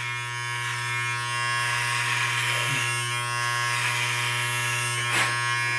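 Electric hair clippers running with a steady buzz while held against a man's beard, trimming it.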